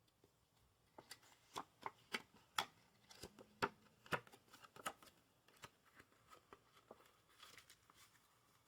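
Playing cards from a USPCC Carver's deck being handled: a run of light, irregular clicks and snaps about a second in, then fainter scattered ticks.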